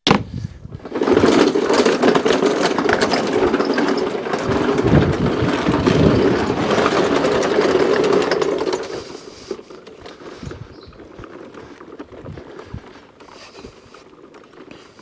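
A lawn mower being wheeled along, its wheels and deck rattling loudly for about eight seconds, then dropping to a quieter rumble.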